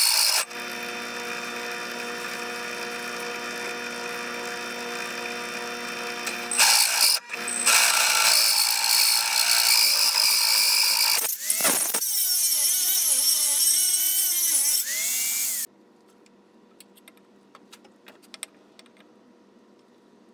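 Drill press driving a hole saw through aluminum plate, with oil dripped onto the cut. The machine runs steadily, then grows louder and harsher about seven seconds in, with a wavering squeal of the cut near the end, and stops abruptly. Faint clicks follow.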